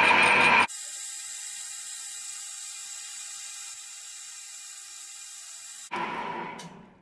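Metal lathe turning a steel pipe: a loud steady running noise with a whine. It cuts off abruptly under a second in, leaving a quieter steady high hiss, and the lathe's running noise returns about six seconds in and fades away near the end.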